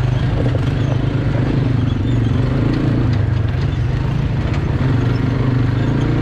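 Quad bike (ATV) engine running steadily while riding over a rough off-road track, a low drone with small rattles and knocks scattered through it.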